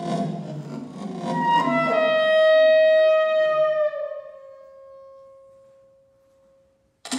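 Soprano saxophone with electronics: breathy, noisy pulses, then one long held note that sags slightly in pitch and slowly fades away to nothing. A sudden loud attack starts right at the end.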